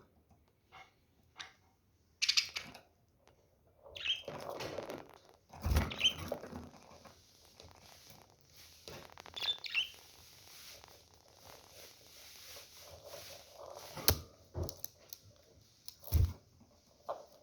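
Budgerigars chirping now and then amid scuffling and pattering, with a few sharp knocks.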